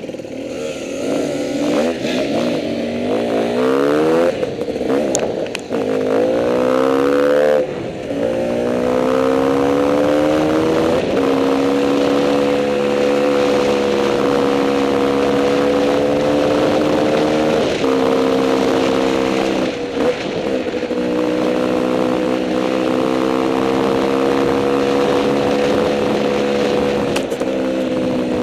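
Enduro dirt bike engine accelerating, its pitch climbing and dropping back three times in the first ten seconds or so as it shifts up through the gears, then running at a steady speed.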